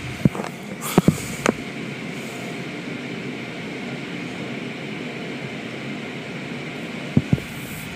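Automatic tunnel car wash heard from inside the car: a steady rush of spray and machinery, with sharp knocks as the hanging cloth strips slap across the car, a few near the start and two about seven seconds in.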